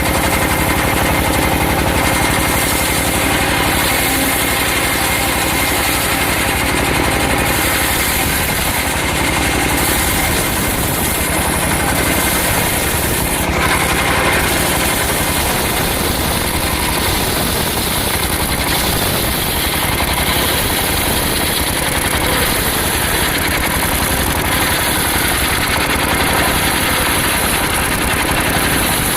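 Engine-driven circular sawmill running steadily: the motor runs at an even pace throughout, with no clear change in load.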